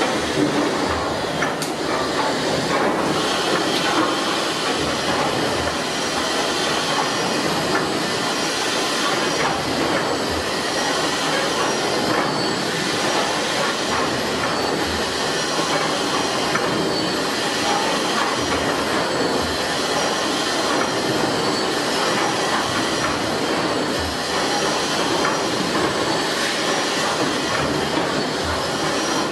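Fowler steam ploughing engine running, a steady hiss with mechanical clatter and the odd low knock.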